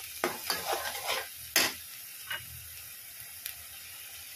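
A perforated metal spoon stirring and scraping ground onion and tomato paste in a metal kadhai, a handful of scrapes and knocks in the first second and a half, the loudest about a second and a half in. After that, a soft steady sizzle of the paste frying in oil, with a couple of light ticks.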